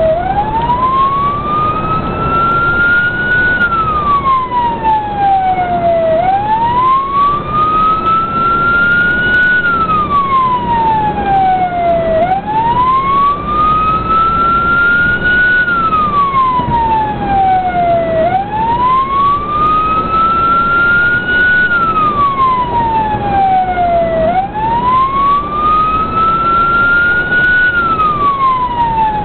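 The responding emergency vehicle's own siren in a slow wail, rising and falling about every six seconds through five cycles, heard from inside the cab over engine and road noise.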